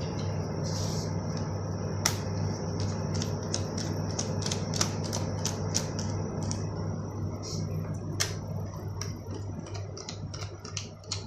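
Small sharp clicks of a screwdriver working out the screws of a laptop's back cover, coming several a second from about three seconds in, over a steady low hum.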